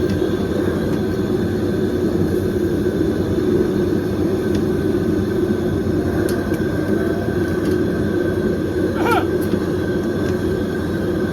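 Steady, loud din of a busy street food market: a constant mechanical-sounding rumble, such as stall fans or motors, mixed with crowd noise. A short wavering high call cuts through about nine seconds in.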